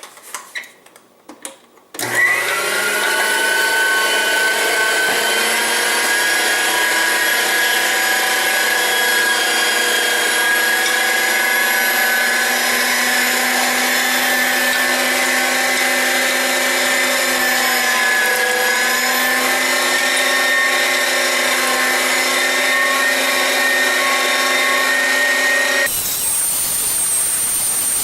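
LEM #8 575-watt countertop electric meat grinder being switched on: a few light clicks, then about two seconds in the motor starts with a steady, loud electric whine made of several tones. It runs evenly, dipping slightly in pitch about two thirds of the way through. Near the end the sound changes abruptly to a steady hiss.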